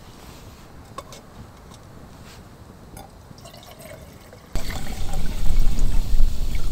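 Water splashing, starting abruptly about four and a half seconds in after a quiet stretch with a few faint clicks.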